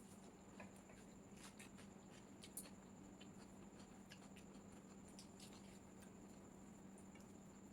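Near silence with faint, scattered soft clicks and ticks of quiet eating and chewing over a low steady hum.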